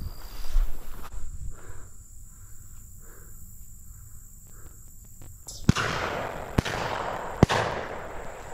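Three shotgun shots about a second apart in the second half, the middle one fainter, with a rushing noise around them. A brief noisy rustle comes at the start.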